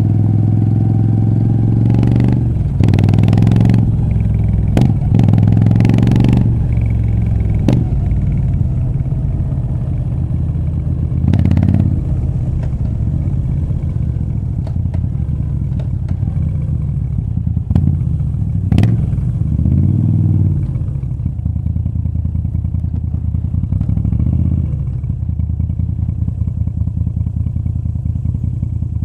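Moto Guzzi V7 III Rough's air-cooled 744 cc transverse V-twin running through a short Mistral exhaust while riding. The revs rise and fall over the first several seconds, then the engine settles into a steadier, quieter pull from about two-thirds of the way in.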